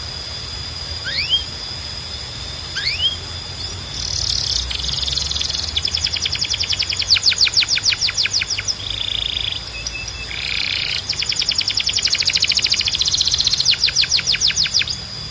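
Canary singing: two single rising whistle notes, then about four seconds in it breaks into fast trills of quickly repeated sweeping notes, several a second, with a short break partway through before trilling again until near the end.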